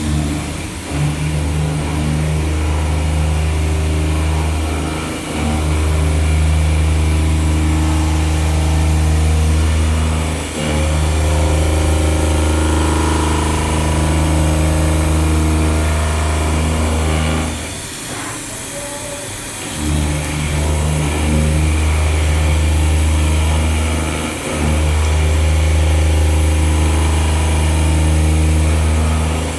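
CNC milling machine running a pocket-milling cycle: a steady low machine hum that drops out briefly a few times, once for about two seconds.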